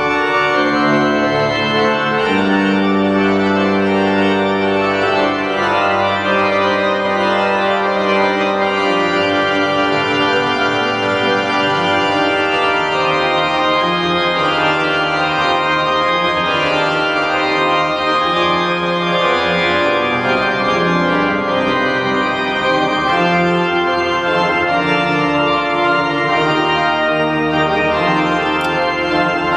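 Church pipe organ playing slow, sustained chords, with low notes held for several seconds at a time.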